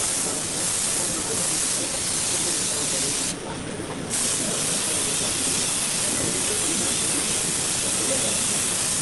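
Compressed-air paint spray gun hissing steadily as it sprays a car fender. The hiss briefly drops off about three and a half seconds in, then resumes.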